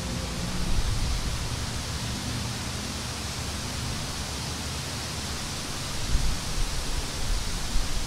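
Wind blowing across an open field, a steady rushing hiss, with gusts buffeting the microphone in low rumbles about a second in and again around six and eight seconds in.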